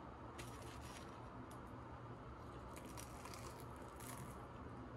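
Faint crunching of a bite of crispy fried food being chewed, a few soft crackles spread through.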